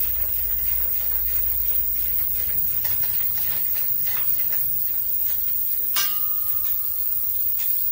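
Light, irregular clicks and taps of a socket on a long extension being turned by hand to back out the fuel-tank fasteners, over a steady background hiss. About six seconds in, a sharper metal clink rings on briefly.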